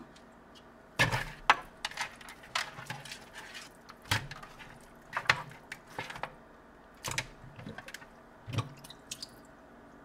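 Irregular knocks and clatter as raw catfish pieces are handled and rubbed in a plastic colander in a stainless-steel sink, the colander bumping the sink and bowl. The sharp knocks come every second or so, loudest about a second in and near the middle.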